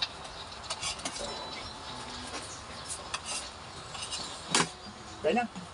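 Scattered light clicks and clinks, like dishes or utensils being handled, with one louder knock about four and a half seconds in and a brief voice-like sound near the end.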